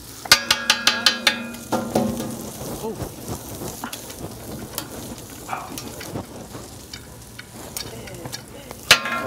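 Metal teppanyaki spatulas clanging in a fast rhythm, about eight ringing clinks in the first second or so. Then food sizzling on the hot griddle, with scattered light taps and one more clink near the end.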